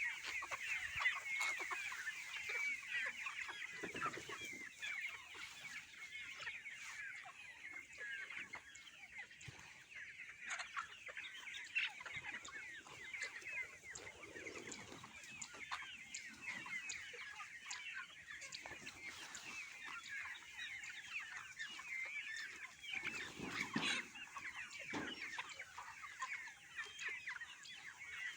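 A flock of chickens calling continuously: many overlapping high-pitched peeps and clucks, with a few soft low thumps.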